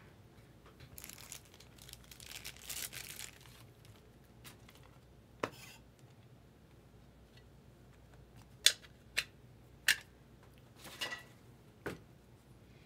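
A foil trading-card pack wrapper crinkling and tearing open for a couple of seconds, followed by several sharp clicks as the chrome cards are handled and squared up.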